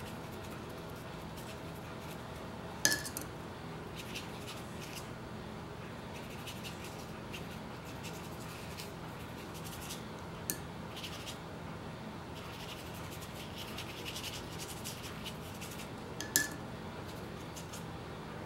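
Quiet room hum with faint scratching of a paintbrush on paper. Two short glassy clinks, one a little under three seconds in and one near the end, as the brush knocks against a container.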